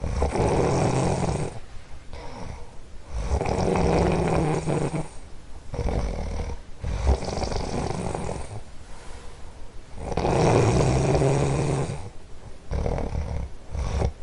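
A sleeper snoring: loud, rattling snores come every two to three seconds, with quieter breathing between them.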